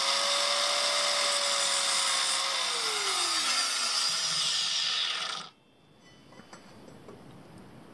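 Handheld electric power tool cutting material to length: the motor runs at a steady pitch, its pitch drops about three seconds in as it comes under load, and the sound stops suddenly about five and a half seconds in.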